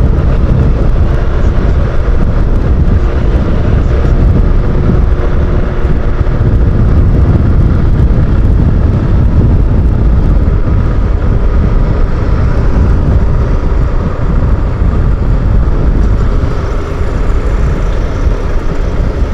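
Riding noise from a Honda motorcycle at about 50 km/h: loud, steady wind rush over the microphone mixed with the running engine.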